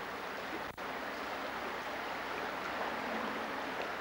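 Steady rush of water flowing in a shallow stream, with the sound cutting out for an instant less than a second in.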